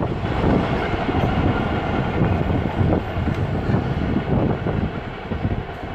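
Long diesel-hauled engineering train running slowly away along the track, its wheels rolling on the rails with a steady low rumble that gradually fades with distance.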